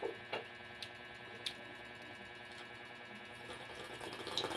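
Quiet room with a few faint scattered clicks, then a short sip from a coffee mug near the end.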